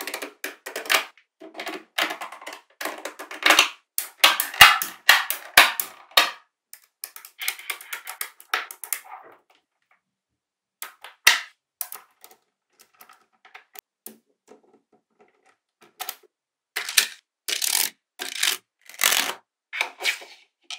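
Small magnetic balls clicking and snapping against one another in quick, irregular runs. The clicks thin out to scattered faint ticks midway, then come back as louder single snaps near the end.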